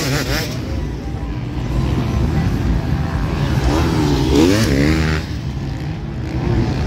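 Motocross motorcycle engines running on the race track, a steady drone with a few quick rises and falls in revs about four seconds in, as a rider works the throttle.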